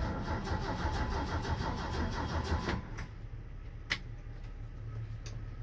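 1967 Ford F250's inline-six engine cranking on its starter in an even rhythmic chug for nearly three seconds, then stopping. It does not fire: fuel has not yet reached it from a temporary gas tank.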